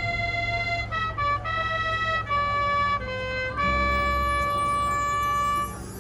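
Marching band playing a slow passage of long held notes that step from pitch to pitch, ending on a long sustained chord that drops away shortly before the end.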